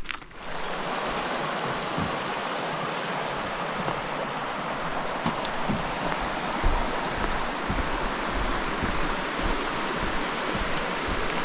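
Steady rush of running water from a Highland stream, with occasional soft low thumps.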